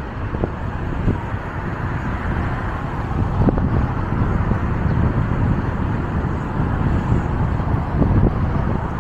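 City street traffic noise with a steady low rumble, heard from a moving bicycle, with a few short knocks.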